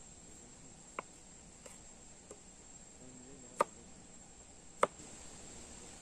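Knife cutting a cucumber on a cutting board: three sharp chops, a light one about a second in and two louder ones later, over a steady high-pitched insect drone.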